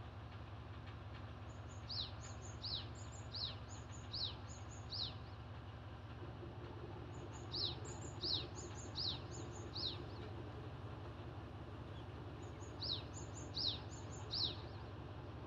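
A songbird singing three phrases, each a run of three or four quick falling whistles with short high notes between them, over a low steady hum.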